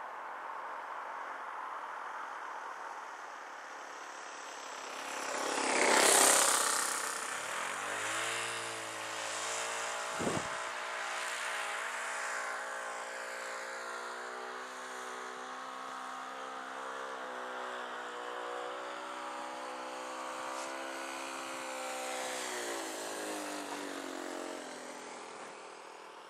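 Radio-controlled model aeroplane engine in flight, passing close and loud about six seconds in, then a steady, even-pitched drone that fades out near the end. A short sharp pop comes about ten seconds in.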